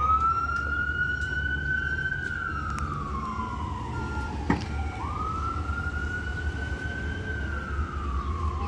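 Electronic siren on a fire department command pickup sounding a slow wail. Each cycle jumps up, climbs slowly and then falls away over a few seconds, twice. A single sharp click about four and a half seconds in.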